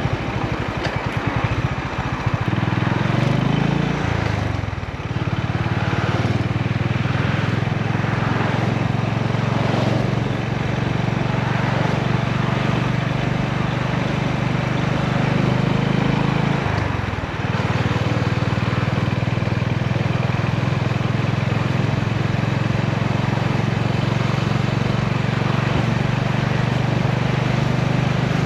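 Honda GB350's air-cooled single-cylinder engine and exhaust running steadily under way. The note climbs and then drops about four seconds in, and dips briefly again a little past halfway.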